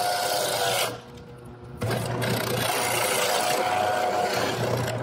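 Benchtop drill press running and boring a hole through a small wooden board, motor whining over the bit's cutting noise. About a second in it drops off sharply for almost a second, then comes back at full strength.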